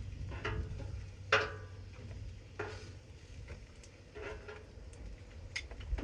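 Metal spatula scraping and clinking on a Blackstone flat-top griddle as fried potatoes are lifted off, in about half a dozen short, separate scrapes over a low steady hum.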